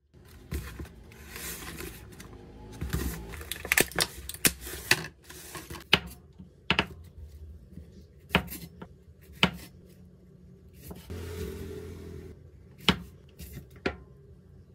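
Kitchen knife knocking on a wooden cutting board as strawberries are hulled: about ten sharp knocks at irregular intervals, with stretches of soft rustling between them.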